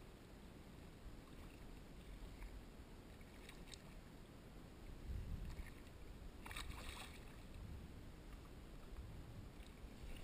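Water lapping and splashing beside a kayak, with a few brief splashes from a hooked smooth-hound thrashing at the surface, the loudest about six and a half seconds in.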